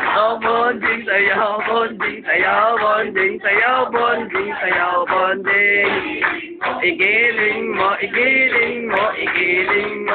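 A man singing loudly over background music. The sound is cut off above the high notes, as from a low-quality phone recording.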